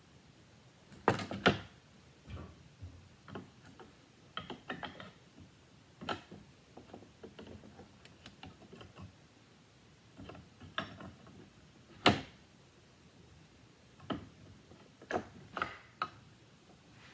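Irregular clicks, knocks and clinks of hand tools and hardware being worked on a workbench, with three louder knocks.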